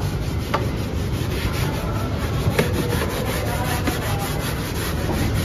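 A cloth scrubbing foamy cleaner over a car's plastic interior door panel, a steady rubbing, with two sharp clicks, one about half a second in and one a little after two and a half seconds.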